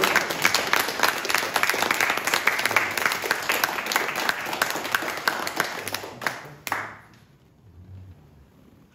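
Audience applauding with many hands clapping, fading out about seven seconds in with a few last single claps.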